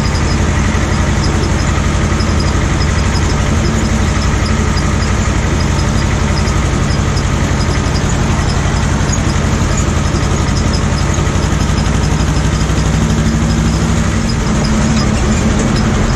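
Ursus C-330M tractor's two-cylinder diesel engine running steadily.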